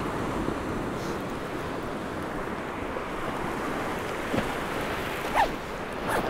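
North Sea waves washing onto a sand and rock shore, a steady rushing with wind buffeting the microphone. Two short, sharper sounds stand out near the end, the second the loudest.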